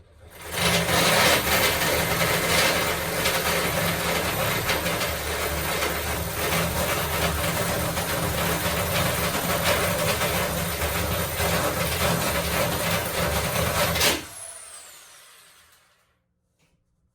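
Power drill boring a hole through the wooden edge of an internal door for a tubular latch, running steadily for about fourteen seconds, then released and winding down with a falling whine.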